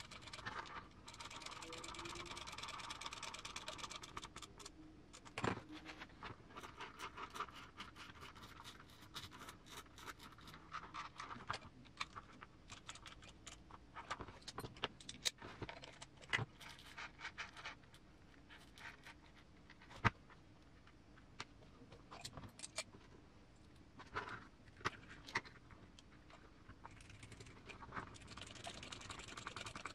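Faint handling of small parts while assembling a hobby RC car's transmission: scattered light clicks, clinks and scrapes of small metal and plastic pieces, with stretches of soft rustling near the start and the end.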